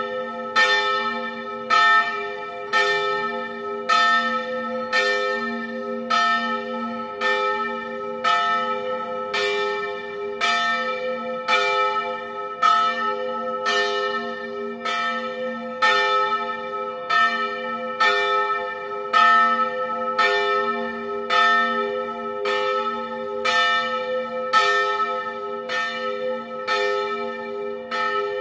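A peal of bronze church bells cast by Broili in 1921, swung in the Friulian style and tuned to a slightly flat G. Strokes fall about once a second without a break, each one ringing on into the next.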